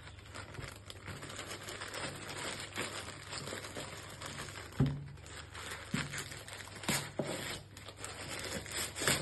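Packaging being handled and opened by hand: wrapping crinkling and rustling, with a few sharp clicks or taps, the loudest about five seconds in and another near the end.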